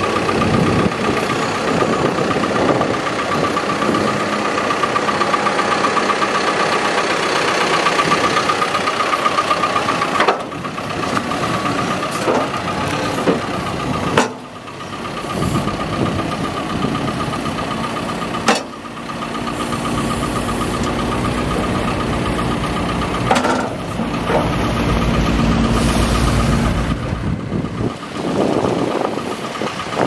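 Caterpillar 420F backhoe loader's diesel engine running as the machine drives, with a steady high-pitched whine over the engine noise. The sound drops briefly three times and grows heavier in the low end later on.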